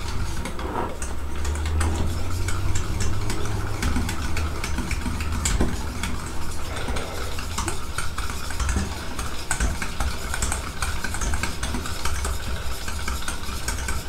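A wire whisk beating a thick mayonnaise-and-yoghurt sauce in a stainless steel bowl: rapid, irregular clicking and scraping of the wires against the metal, over a steady low hum.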